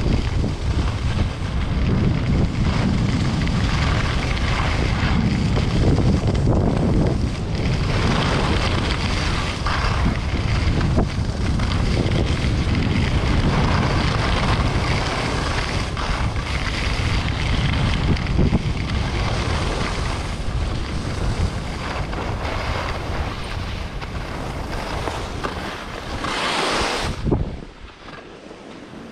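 Wind buffeting the microphone and skis running over snow during a downhill ski run: a steady rushing noise with a heavy low rumble. About 27 seconds in, it swells briefly and then drops off sharply.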